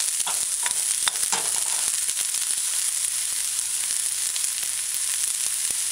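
Sliced onions and diced scallion sautéing in a little coconut oil in a stainless-steel skillet on low heat: a steady sizzle with scattered small pops.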